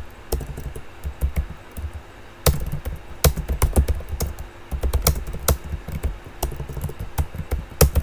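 Typing on a computer keyboard: a quick, irregular run of key clicks, each with a soft low thud, pausing briefly about two seconds in before carrying on.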